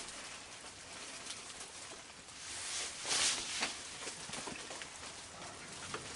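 Raccoons feeding on a wooden deck: soft chewing and scattered small clicks over a steady hiss, with a brief louder hiss about three seconds in.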